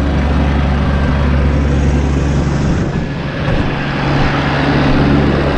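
Tractor engine running at a steady speed with a steady low drone, driving a Pöttinger Nova Disc 305 disc mower.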